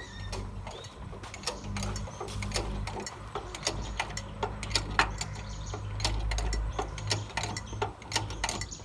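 Machinery running with a low steady engine hum under dense, irregular clicking and clattering of moving parts.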